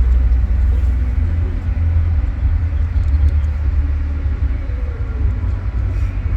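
Wind buffeting the microphone: a loud, steady low rumble that flickers without any clear bangs or tones.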